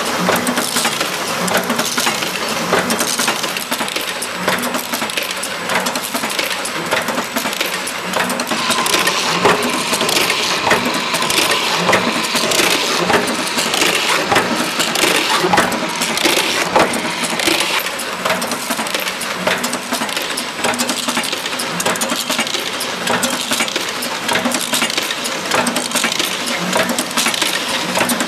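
Dimter ProfiPress high-frequency gluing press running, with a continuous dense clatter of rapid clicks and knocks from its feed and press mechanisms as wooden strips pass through.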